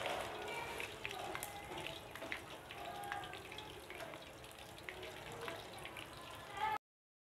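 Breaded chicken drumsticks deep-frying in hot oil in an aluminium karahi, sizzling steadily with scattered crackles and pops. The sound cuts off suddenly near the end.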